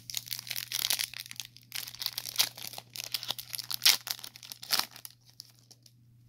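Foil wrapper of a Panini Select trading card pack crinkling and tearing as it is ripped open by hand. The crackling stops about five seconds in.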